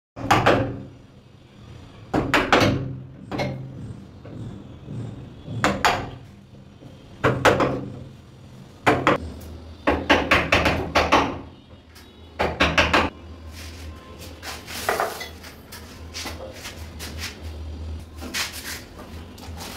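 Hammer striking a chisel into the wood of a door, cutting out the recess for a round knob lock: sharp knocks at irregular intervals, some in quick clusters, with lighter knocks in the last few seconds.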